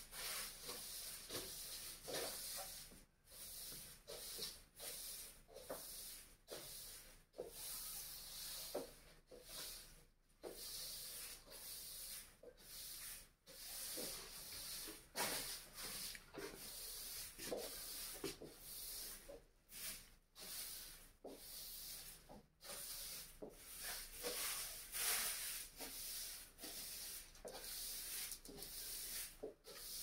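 Straw broom sweeping a laminate floor: repeated swishing, scraping strokes about one a second, with brief pauses between them.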